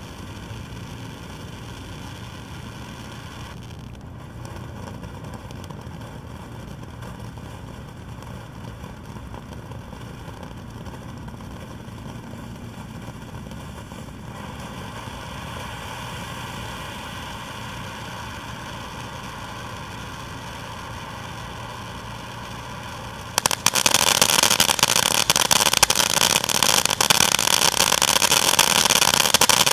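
A 180-second fireworks fountain burning with a steady rushing hiss of spraying sparks, its tone shifting as the effects change. About 23 seconds in it suddenly gets much louder and harsher, full of rapid crackles.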